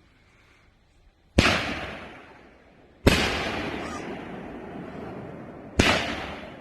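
Consumer 500-gram fireworks cake of 2-inch nishiki willow shots firing: three loud booms about one and a half, three and six seconds in, each trailing off over a second or more.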